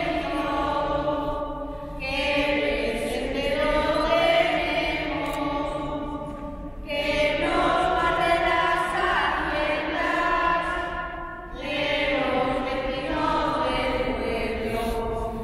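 A small group of women singing a Christmas carol together, in four long phrases with short pauses for breath between them.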